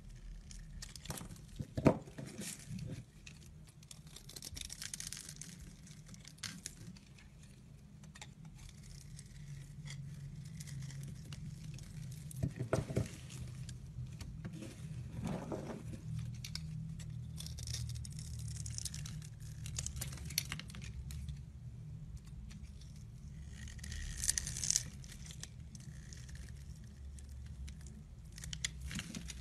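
Snap-off utility knife blade scraping and slicing through bars of soap, with brittle crackling and clicking as flakes and scored cubes break away and crumbles patter down; a sharp crack about two seconds in. A steady low hum runs underneath.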